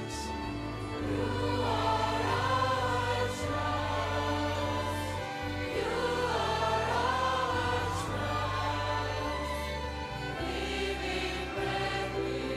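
A choir sings with an orchestral accompaniment of violins over held bass notes. The voices come in and the music swells about a second in.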